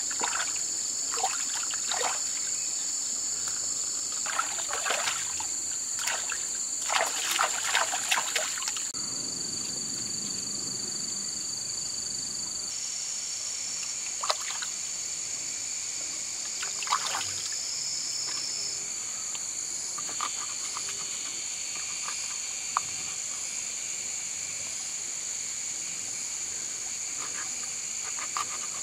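A steady, high-pitched insect chorus over trickling stream water. For the first eight seconds or so there are repeated splashes as hands rinse eels in the shallow water; later come a few sharp, isolated taps.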